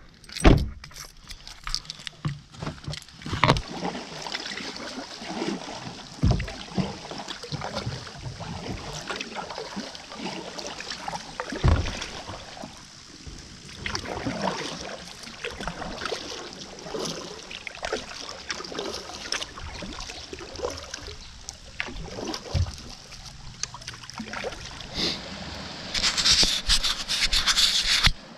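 Kayak and gear handling on a creek: irregular knocks and rubbing against the hull, with paddle splashes and water sounds. A louder stretch of hissing, scraping noise comes near the end.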